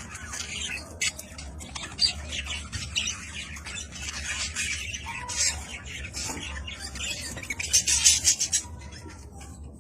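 Budgerigars chattering and squawking in a steady stream of short, high-pitched calls, with a louder flurry of rapid calls about eight seconds in.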